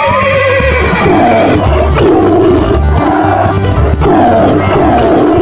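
Several rough animal roars in a row, sound effects for animated running animals, over background music with a steady low beat.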